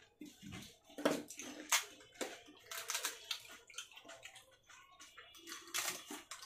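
Fuchka being eaten fast: crisp puffed shells crunching and the spiced water inside slurped and sloshing, in a run of irregular bites.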